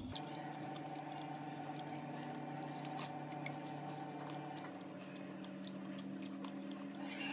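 Light clicks of a metal fork against a ceramic plate as pieces of pizza are lifted, over soft steady tones that change about two-thirds of the way through.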